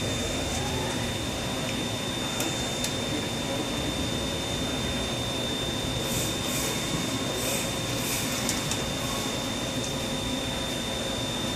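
Milltronics CNC lathe idling with its spindle stopped: a steady machine hum with a constant thin high-pitched whine, and a few light clicks and short hisses past the middle.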